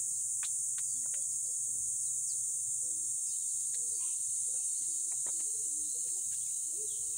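Steady high-pitched drone of insects such as crickets or cicadas, with a few scattered light clicks and taps.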